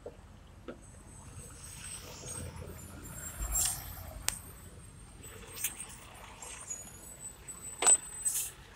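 Handling noise from a phone camera being carried and set down: rustling with scattered light knocks and clicks, and one sharp knock about eight seconds in.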